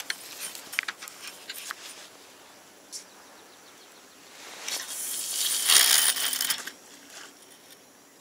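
Spinning reel being handled, with a few small sharp clicks, then a cast: a swish and the hiss of line running off the spool, building for about two seconds past the middle and stopping sharply.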